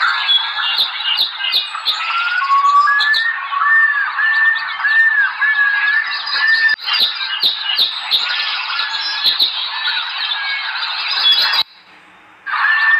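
A dense chorus of many birds calling, chirping and squawking, with short arched calls repeating over and over. It cuts out for just under a second near the end, then starts again.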